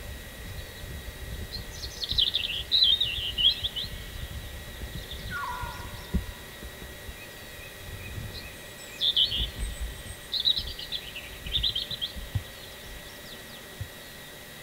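Songbirds singing in short bursts of fast, high chirping phrases, about two seconds in and again twice near the end, with one brief lower falling call about halfway. A low rumble sits underneath.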